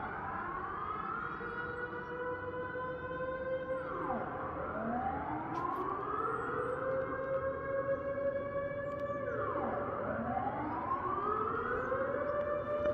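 Civil-defence warning sirens sounding their monthly test signal: a wailing tone that drops and climbs again about every five to six seconds, with more than one siren heard at once at different pitches and phases.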